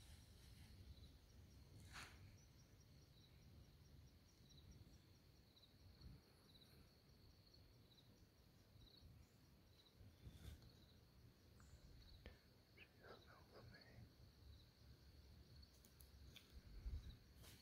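Near silence in the woods: an insect chirping faintly in an even rhythm over a steady high-pitched hum, with a few soft clicks and rustles.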